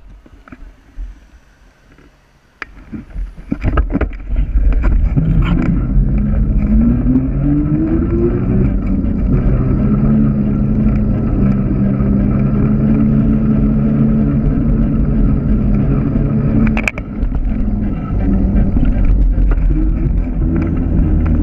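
Wind rushing over the camera's microphone while riding a bike along a road, after a few knocks as the bike sets off. A hum rises in pitch as the bike gathers speed, then holds steady.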